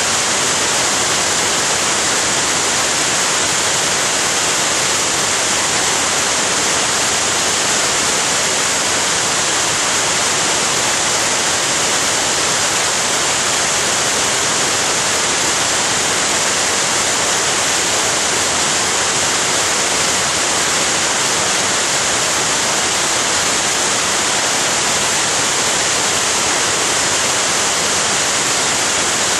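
A waterfall's steady rush of falling water: an even, hissy roar that stays at one level.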